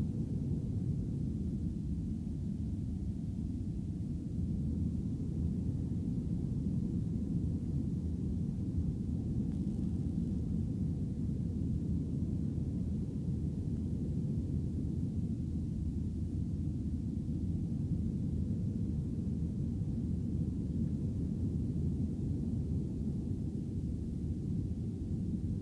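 Steady low rumble of an airliner cabin in flight: engine and airflow noise heard from inside the cabin.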